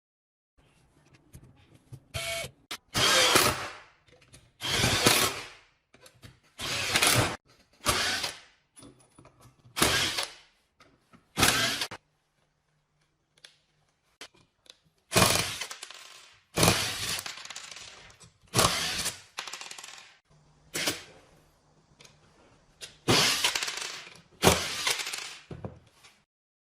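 Impact wrench hammering in about a dozen short bursts, each under a second long, with brief pauses between them and a longer pause about halfway through.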